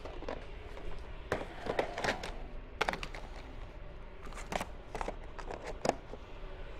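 A scattering of short, light knocks and clicks as small items are picked up and handled on a tabletop, over quiet room tone.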